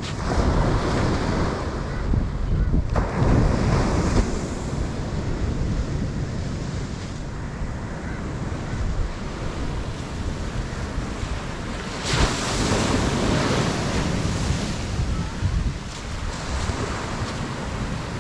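Sea waves washing onto the shore, swelling in the first few seconds and again about twelve seconds in, with wind buffeting the microphone.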